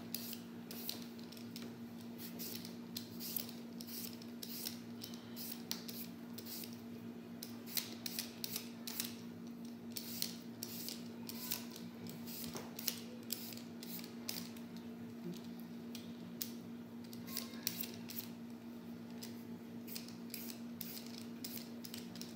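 Y-shaped vegetable peeler scraping the skin off a raw potato in repeated short strokes, with a steady low hum underneath.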